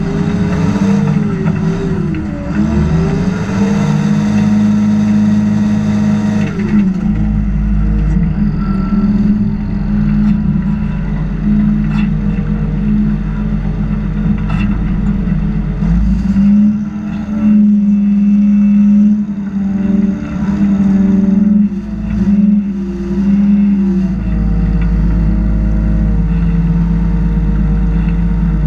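Cat 330 hydraulic excavator's diesel engine running under hydraulic load as the bucket curls and the boom lifts, its note rising and falling as the load changes.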